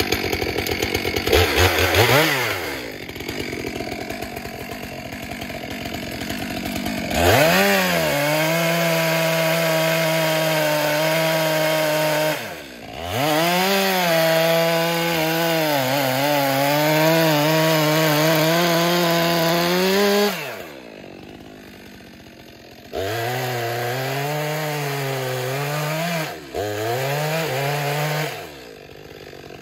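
Chainsaw revving up from idle and cutting into a tree in three long stretches, its pitch sagging and wavering under load, falling back to idle between cuts.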